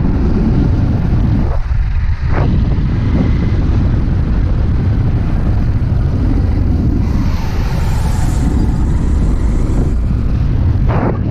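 Motorcycle riding along a dirt track: a steady, loud low rumble of the engine mixed with wind on the microphone.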